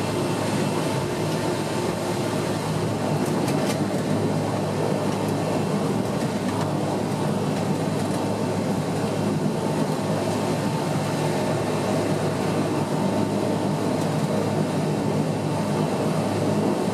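Inside the cabin of a Bombardier Dash 8-100 beside its turboprop engine and propeller during taxi: a steady drone with a constant tone above it.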